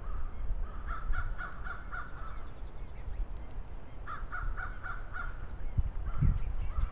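A bird calls in two quick runs of repeated notes, about five a second, each run lasting just over a second, and gives a shorter run near the end. A steady low rumble runs underneath.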